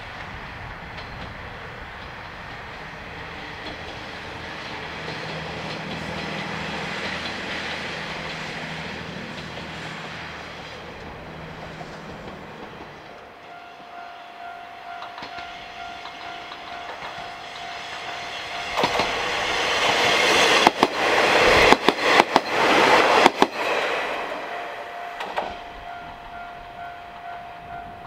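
Mizushima Rinkai Railway KiHa 30/38 diesel railcars. First the diesel engine is heard running as the train goes by at a distance. Then the train approaches and passes close, loudest about two-thirds of the way through, with wheels clacking over rail joints. A steady ringing tone sounds through the second half.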